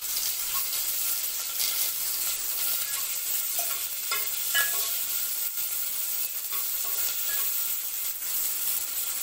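Chopped onions and curry leaves sizzling in hot oil in a pot, tempering for sambar, with a steady hiss and occasional scraping as they are stirred.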